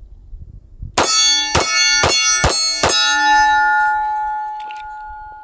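Five quick shots from a Springfield Armory LAV 1911 in .45 ACP, starting about a second in and all fired within two seconds. Each hit rings a hanging steel target plate, and the ringing hangs on and slowly fades after the last shot.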